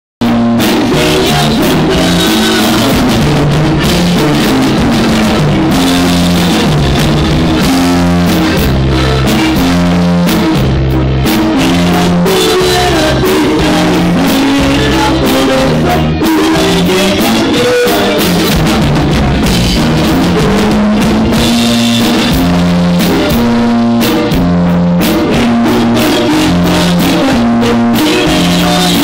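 A conjunto band playing a corrido, with drum kit, bass and guitar keeping a steady beat.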